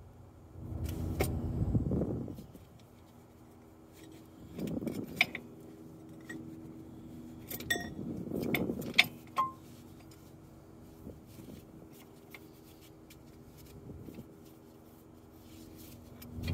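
Metal tools and suspension parts clinking and rattling as they are handled, in three bursts with a few sharp metallic pings, over a faint steady hum.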